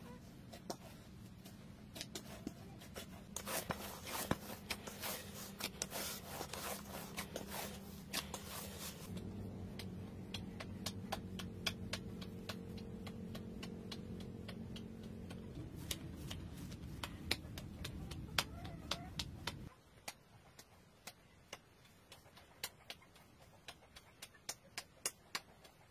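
Hands kneading and shaping bread dough: soft slaps, pats and taps of palms on dough, coming in quick runs, over a low steady hum that cuts off about three-quarters of the way through.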